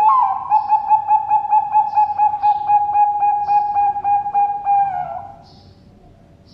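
Zebra dove (Bangkok-strain perkutut) cooing: one long, clear call that starts sharply, pulses at about four beats a second for some five seconds and ends with a slight drop in pitch. Faint high chirps of small birds sound above it.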